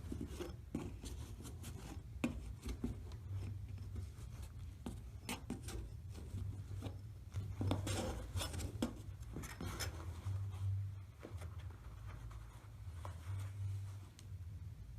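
Scattered short scrapes, rubs and light clicks of hand work on the freshly applied fire-stop foam, over a steady low hum.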